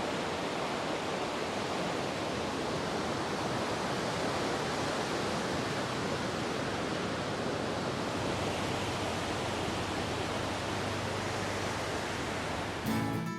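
Ocean surf washing on the shore: a steady, even rush of water noise with slight swells. Acoustic guitar strumming comes in near the end.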